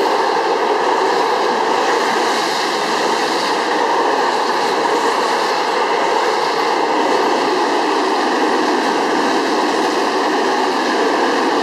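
Freight wagons passing close by at speed: a steady, loud noise of steel wheels running on the rails, with no let-up.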